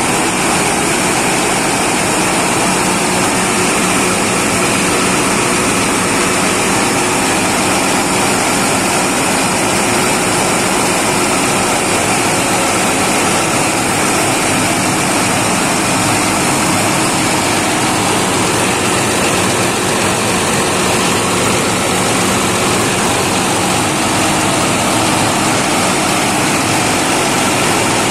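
A freshly serviced 6105-series Chinese six-cylinder diesel engine of a generator set, running steadily at constant speed.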